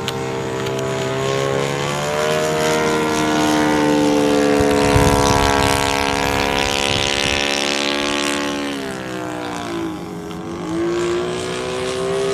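R/C model airplane's YS-120NC glow engine running in flight through a loop. Its pitch climbs over the first few seconds and holds, then drops and dips about nine seconds in before rising again; it is loudest in the middle.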